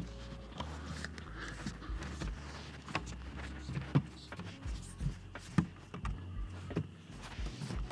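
Hands pressing and tapping a front spoiler lip up against the underside of a car's front bumper: scattered sharp knocks and clicks, several seconds apart.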